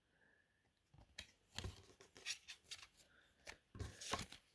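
Faint clicks and rustles of trading cards being handled and slid apart, a card at a time, with a brief cluster of them near the end.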